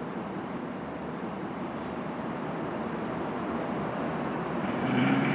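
Night insects, crickets, trilling steadily in a high continuous tone over a hiss, with a second, higher trill joining about halfway through.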